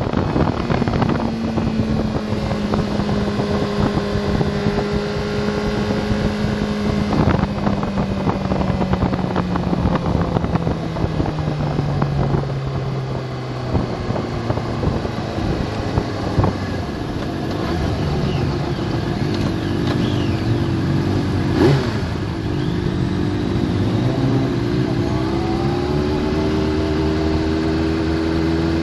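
Sport motorcycle engine heard from on board over wind rush, its note falling steadily as the bike slows from track speed to walking pace. A single sharp click stands out about two-thirds of the way through, and near the end the engine tone rises again at low speed.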